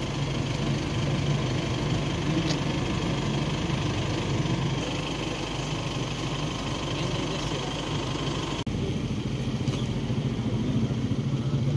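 An engine idling steadily, with a brief dropout about eight and a half seconds in.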